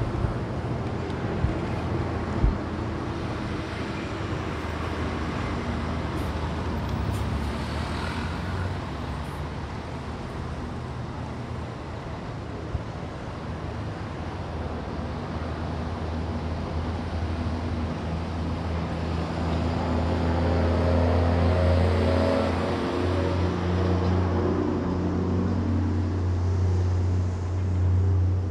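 Road traffic passing on the street below: a steady rush of cars. A large engine's hum grows louder over the second half as a heavy vehicle draws near. Two light knocks come in the first few seconds.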